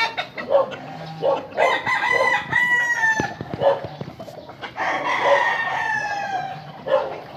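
Gamefowl roosters crowing twice, each a long drawn-out crow sinking slightly in pitch at the end, the second starting about five seconds in, with short clucks in between.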